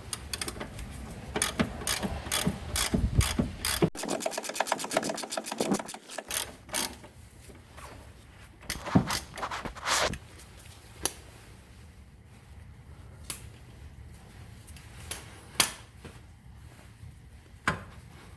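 A ratchet wrench clicking rapidly as the rear shock's 17 mm through bolt is unscrewed, fastest and most even a few seconds in. After about seven seconds the clicking stops, and a few scattered metal clinks and knocks follow.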